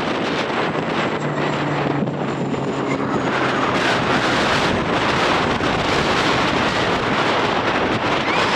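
Aircraft engine noise growing louder, mixed with heavy wind buffeting the microphone. A faint high whine fades out after about three seconds.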